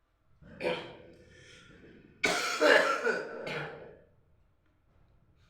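A man coughing and clearing his throat: a short sharp cough about half a second in, then a longer, louder bout of coughing and throat clearing from about two seconds in that dies away before the end.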